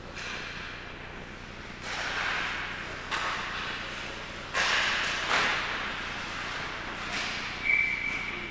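A series of sharp impacts, five or so spread over several seconds, each followed by a short echo, with a brief high squeak near the end.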